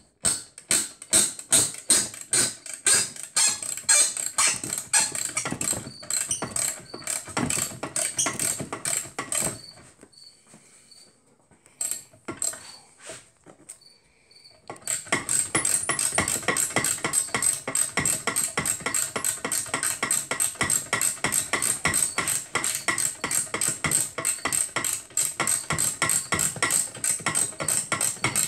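Socket ratchet wrench clicking rapidly as it backs out bolts: a run of fast clicks, a break of a few seconds with only a few stray clicks about ten seconds in, then a second steady run of even clicks.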